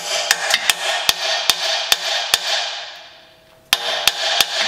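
Hammer blows on metal, about a dozen sharp strikes in quick, uneven succession with a ringing after each, as a rusted exhaust nut is worked loose. The blows pause about three seconds in and resume shortly after.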